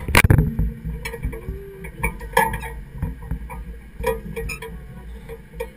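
A loud knock right at the start, then scattered clicks and light metallic clinks of zipline harness and rigging gear being handled.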